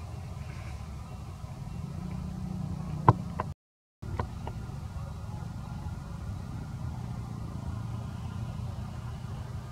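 Steady low rumble of a vehicle engine running, with a few sharp clicks about three seconds in. The sound cuts out to silence for half a second just after them.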